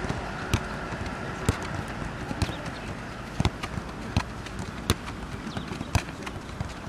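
A football being kicked back and forth, with about six sharp thuds at irregular intervals over a steady outdoor background noise.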